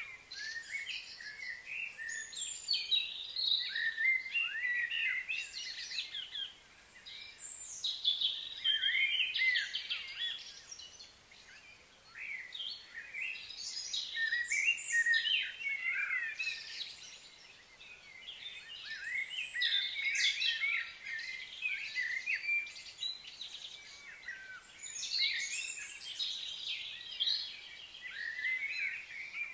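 Several birds chirping and twittering at once, in spells with short lulls between them.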